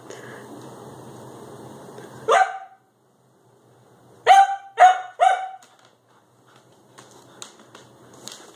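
Siberian husky barking: one bark a little over two seconds in, then three quick barks in a row about four seconds in.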